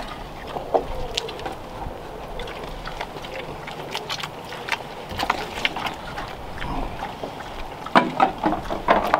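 A pig eating feed from a wooden trough: quick, irregular smacking and chomping, loudest about eight seconds in.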